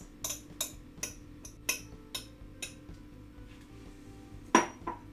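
Metal fork tapping and scraping against a glass bowl, clinking about two to three times a second, as an egg mixture is scraped out; a single louder knock, then a smaller one, about four and a half seconds in.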